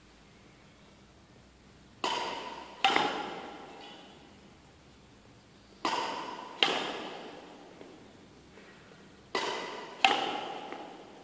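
Badminton racket strings striking a shuttlecock: three pairs of sharp pops, a shot and its return a little under a second apart, each ringing out briefly.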